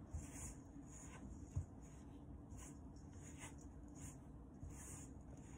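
Hands kneading soft bread dough in a stainless steel bowl: faint, repeated squishing and rubbing strokes, with a dull knock against the bowl about one and a half seconds in.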